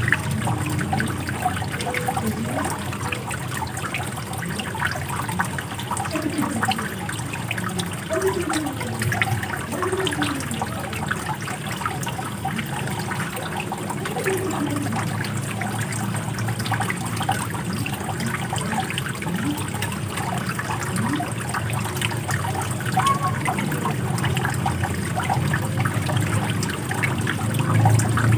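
Running water flowing steadily, trickling and gurgling, with many short bubbling notes.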